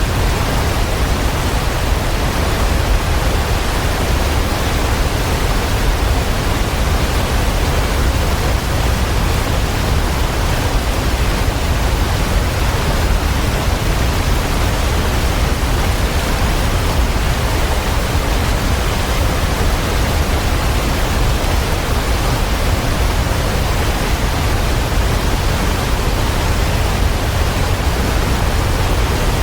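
Waterfall: steady, unbroken rushing of falling water, heaviest in the low rumble.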